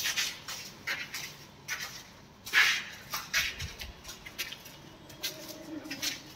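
Footsteps scuffing and scraping on a bare concrete floor scattered with grit and debris, in an irregular walking rhythm, with one louder scrape about two and a half seconds in.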